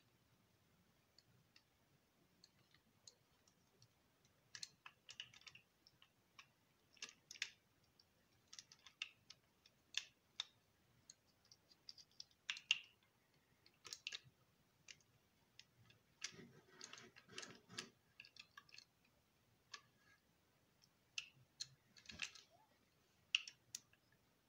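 Scattered light clicks and knocks from a graphite spinning reel being turned over and handled, its handle and body parts clicking, with a busier run of rattling clicks about two-thirds of the way in.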